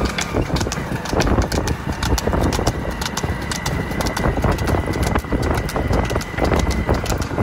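Young buffalo bull's hooves clopping rapidly and unevenly on a hard road as it runs, over a steady low rumble.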